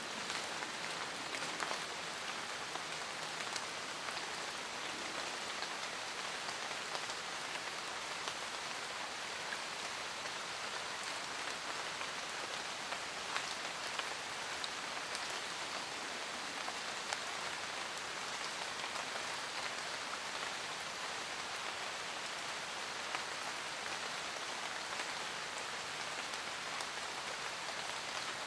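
Steady rain pattering on a camper van roof: a constant hiss with many single drops tapping at random.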